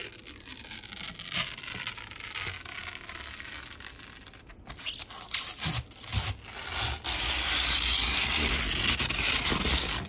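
Clear protective plastic film being peeled off a glass PC case side panel: a crackling, tearing hiss with a few sharp snaps, louder and steadier for the last few seconds.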